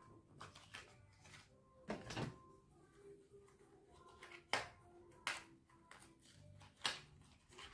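Handling noise from a small gel polish bottle being turned over in the fingers: a few short, sharp clicks and crinkles of plastic, several seconds apart, over faint background music.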